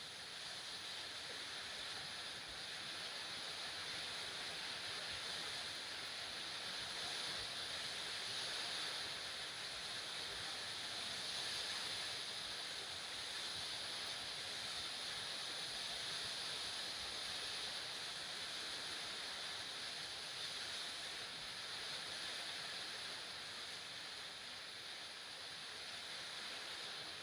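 Steady, even hiss of background noise, with no distinct event standing out.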